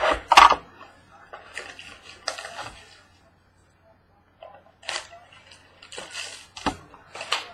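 Cardboard scraping and rustling as a sealed baseball card box is opened, followed by a few separate sharp clicks and taps as the box and its packs are handled.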